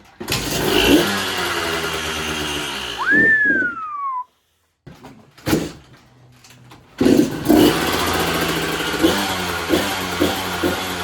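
2004 KTM SX 125 two-stroke dirt bike engine running. The first run cuts off abruptly about four seconds in, and a high tone glides up and falls away just before it. The engine starts running again about seven seconds in.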